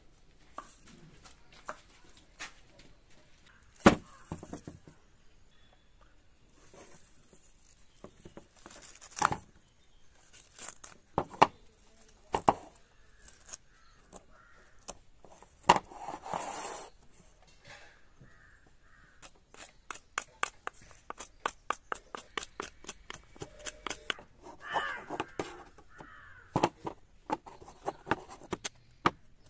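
Dry coconut shell halves knocking together as they are handled, husk fibre torn off by hand, then a machete chopping and scraping the fibre from a coconut shell half: a quick run of sharp strikes, about two a second, through the last ten seconds.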